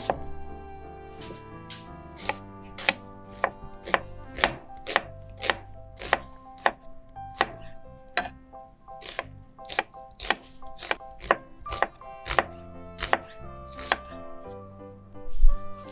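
Chef's knife chopping an onion on a wooden cutting board, the blade striking the board about twice a second, with one louder knock near the end.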